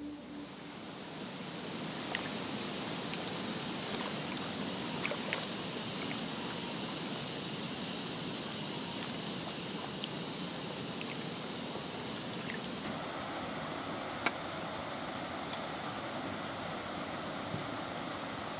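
Steady rush of flowing water, an even hiss with no distinct events. About thirteen seconds in, the sound shifts and becomes brighter and hissier.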